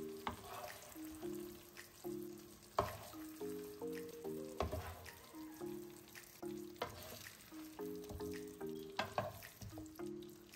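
Wooden spoon stirring thick, hot sweet and sour sauce with pork ribs and vegetables in a nonstick skillet, the sauce sizzling and squelching, with a few sharp knocks of the spoon against the pan. A gentle background music melody plays throughout.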